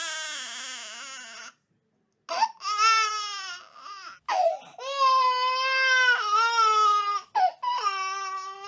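Infant crying: a drawn-out wail trails off into a second of silence. Then the crying starts again about two seconds in, as a string of long wails with short catches between them.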